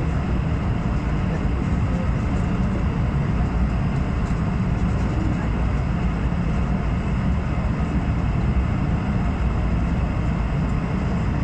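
Steady cabin noise inside an Airbus A220 airliner on descent: a constant low rumble of the engines and airflow with a hiss above it.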